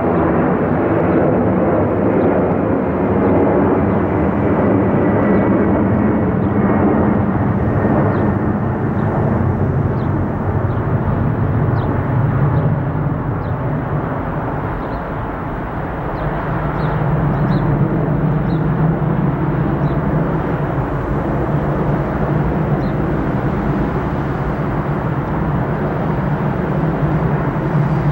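Boeing 747 jet engines running at high power during a takeoff, a loud, steady jet roar with a faint falling whine in the first few seconds.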